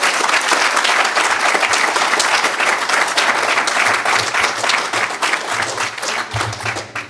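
Audience applauding with dense clapping that dies away near the end.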